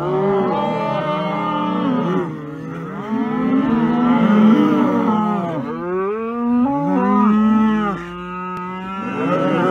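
A herd of black beef cattle mooing, several long calls overlapping one after another with hardly a gap.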